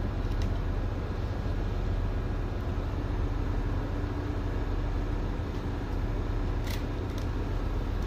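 Steady low mechanical drone with a faint steady hum over it, and a few faint clicks of a screwdriver working between the strands of a steel wire rope being spliced: one about half a second in and two near the end.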